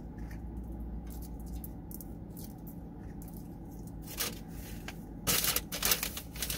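Eating sounds: a plastic fork scraping and picking at chili cheese fries in a cardboard tray, and chewing, with small clicks and a cluster of louder scraping, crunching noises near the end, over a steady low hum.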